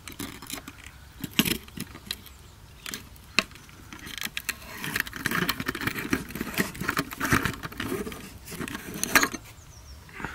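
Energy-saving light bulb being unscrewed from the screw socket of a lamp fixture: scraping and clicking of the screw threads, busiest in the second half, with a sharp click just before the bulb comes free.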